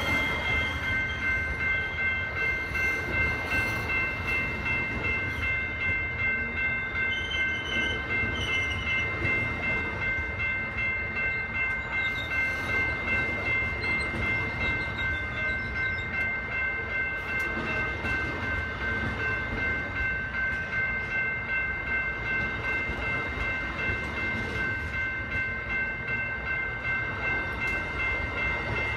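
Amtrak Auto Train's Superliner bilevel passenger cars rolling past at steady speed, a continuous rumble of wheels on rail. Over it, a crossing bell keeps ringing in steady high tones.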